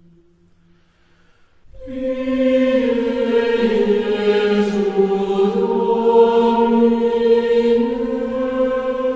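Background music of slow, sustained vocal chanting: after a short lull, a new long held phrase of voices begins about two seconds in and swells, sustaining with only slight shifts in pitch.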